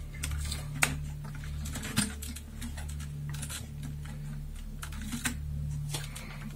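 Small plastic clicks and taps from hands fitting wire connectors and plastic parts inside a model robot kit, irregular throughout, with three sharper clicks standing out.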